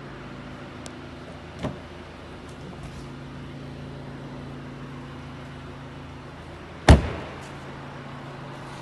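Audi A6 idling with a steady low hum. A car door shuts with a knock about a second and a half in, and another door slams much louder near the end, the loudest sound.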